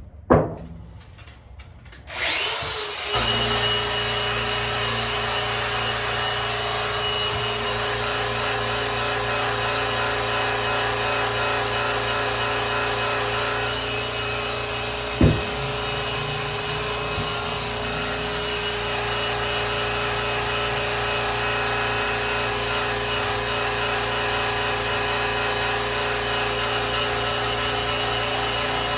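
Electric polisher switched on about two seconds in and running steadily, its pad buffing a grand piano's finish. A sharp knock comes just before it starts and another about halfway through.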